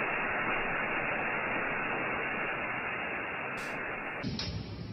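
Steady static-like hiss from the soundtrack of reactor startup footage. About four seconds in it changes abruptly to a fuller noise with more low rumble.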